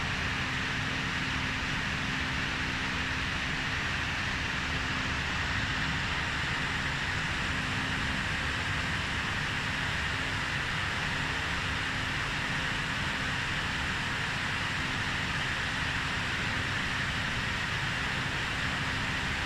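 Steady workshop background noise: an even hiss with a low hum underneath and a faint steady low tone that fades out about halfway through.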